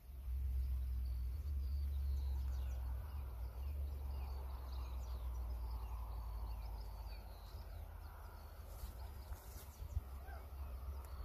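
Low wind rumble on the microphone in open country, with small birds chirping here and there in the distance.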